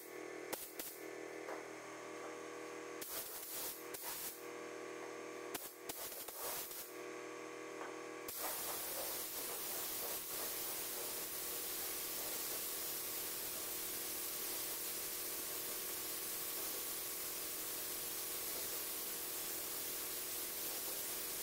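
Pneumatic paint spray gun hissing as it sprays a car door: a few short bursts in the first eight seconds, then a continuous hiss from about eight seconds in, over a steady hum.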